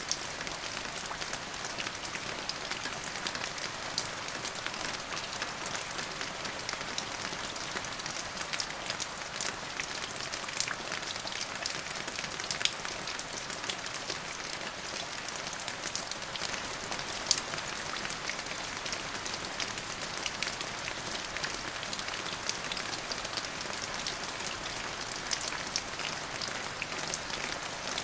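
Steady rain falling, a continuous hiss with many individual drops ticking sharply on a surface.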